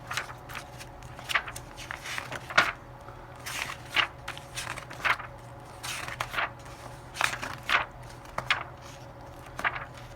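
A series of irregular short knocks and scrapes, about one or two a second, over a steady low hum.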